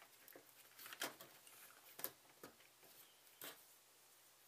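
A few faint, separate clicks and taps of hand tools and a circuit board being handled on a workbench, over near silence.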